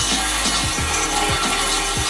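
Pressure washer's high-pressure water jet spraying onto a motorcycle frame and parts, a steady hiss, over background music with a regular beat.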